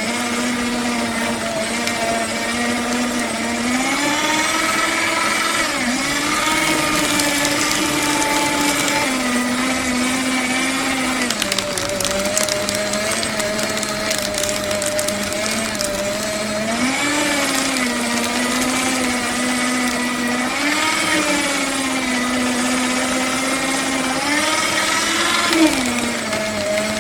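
Electric paper shredder running and cutting paper: a steady motor hum with a crackling rustle of paper being cut. The hum steps up in pitch several times, holding for a few seconds each time before dropping back.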